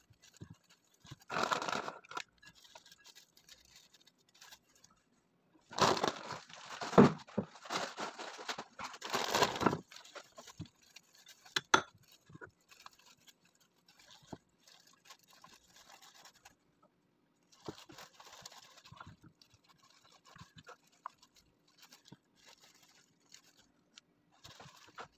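Disposable plastic food-prep gloves crinkling and rustling as hands squeeze and stuff a cheese filling into bread cones. A short burst about a second and a half in, a louder run of crinkling a few seconds later, then softer rustles.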